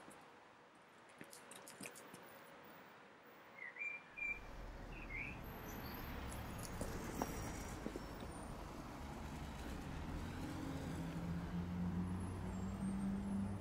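A few short bird chirps about four seconds in, then a low droning rumble that grows steadily louder, with a steady hum in it.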